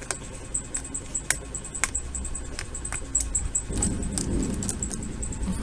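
Scattered light clicks of a screwdriver on the small screws of a GMK67 mechanical keyboard as they are undone, with a soft rustle of handling starting about two-thirds of the way in.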